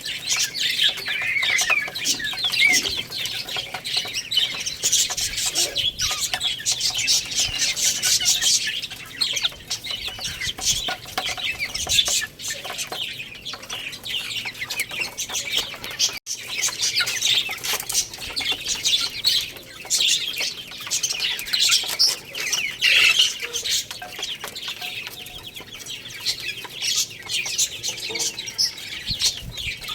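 A flock of baby chicks peeping constantly, many overlapping high-pitched chirps, with a momentary break about halfway through.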